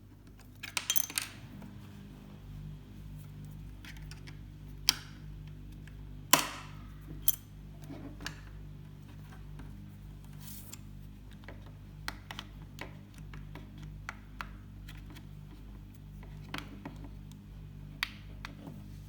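Sharp plastic clicks and snaps as the back cover of a Fimi Palm gimbal camera is worked loose with a plastic pry tool, its latches popping free. A few loud snaps come about a second in, near five to seven seconds and near the end, with small ticks and scrapes between, over a steady low hum.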